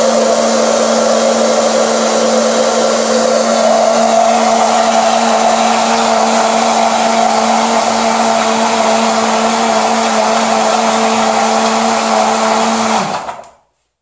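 Mondial countertop blender running steadily, its motor humming as it blends oil, caustic soda solution, salt and vinegar into soap. Near the end it is switched off and the motor winds down to a stop.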